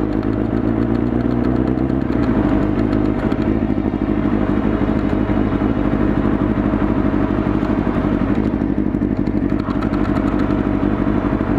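Motorcycle engine running steadily while the bike is ridden along; the engine note changes about two seconds in.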